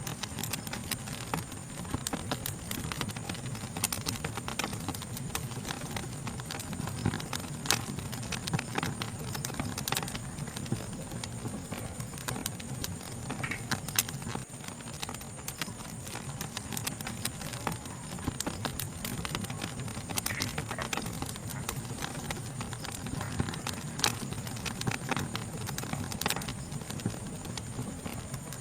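Wood fire crackling, with irregular sharp pops and snaps over a low steady rumble. A steady high-pitched insect chorus runs behind it.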